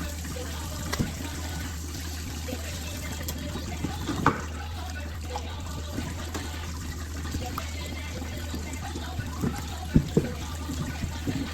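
Water running steadily, as from a kitchen tap, over a low hum, with a few sharp knocks of utensils or dishes.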